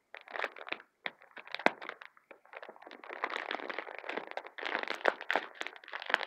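Plastic packet of makeup remover wipes crinkling and crackling as it is handled, with a few sharp clicks among the irregular rustle.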